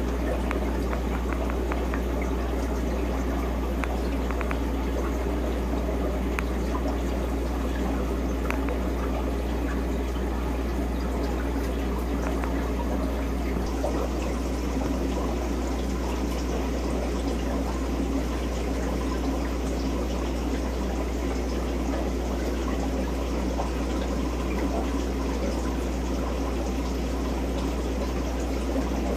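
Aquarium filter running: a steady trickle and splash of water with a constant low hum underneath.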